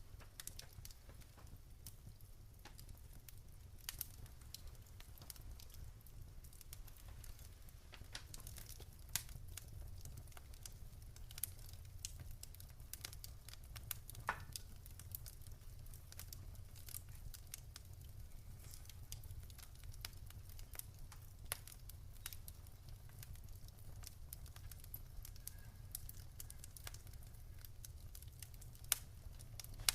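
Wood fire crackling in a fireplace: irregular sharp snaps and pops, a few louder than the rest, over a low steady rumble.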